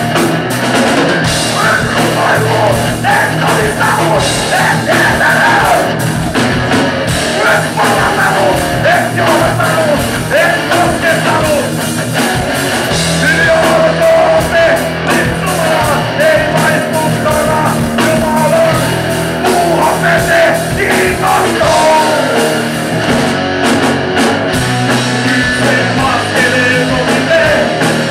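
Live heavy rock band playing: electric guitars, drums and keyboards, with a male lead singer singing into the microphone.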